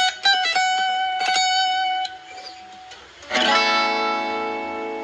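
Guitar music: a run of quick plucked notes, a short lull, then a strummed chord left ringing.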